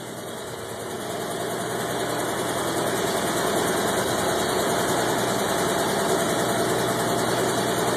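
Willys M38A1 jeep's four-cylinder F-head Hurricane engine idling steadily, running on fuel drawn from its own tank. It grows louder over the first few seconds, then holds steady.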